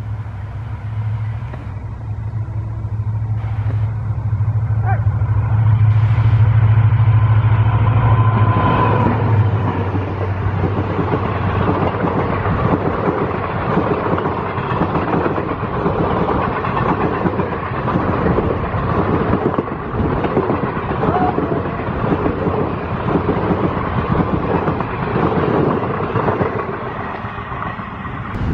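WDP-4B diesel locomotive with its EMD 16-cylinder two-stroke engine, working steadily with a deep drone as it approaches and passes, loudest about six to eight seconds in. Its passenger coaches then roll past with a rapid clickety-clack of wheels over the rail joints.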